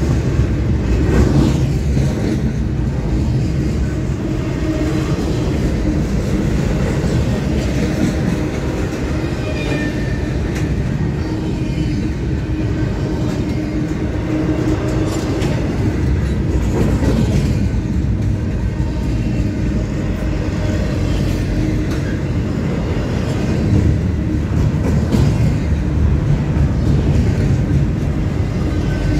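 Double-stack intermodal freight train rolling past close by: a steady, loud rumble of the cars on the rails, with occasional clacks of the wheels.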